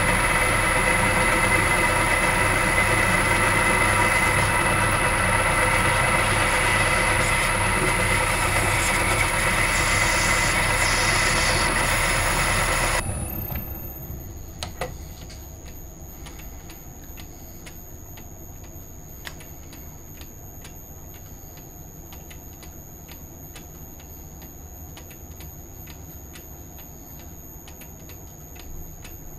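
Metal lathe running, its motor and gears whining steadily while the cutting tool turns a small part. Its sound cuts off suddenly a little under halfway through when the lathe is switched off, leaving only faint light clicks and taps.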